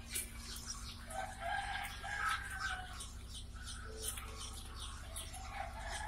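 A crowd of newly hatched chicks peeping constantly, with many overlapping high chirps, over a steady low hum.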